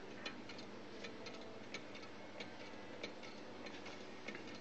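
Homemade low-temperature-difference Stirling engine with a CD flywheel, running on the heat of a mug of hot coffee and ticking lightly and regularly, about three ticks every two seconds.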